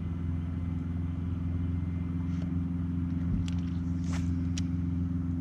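Boat motor running steadily with an even low hum. A few short sharp clicks come between about three and a half and four and a half seconds in.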